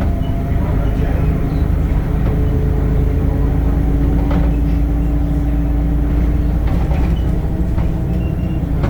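Temsa Avenue LF 12 city bus running, its DAF diesel engine and ZF gearbox giving a steady low rumble. A steady whine runs along with it and stops about seven seconds in.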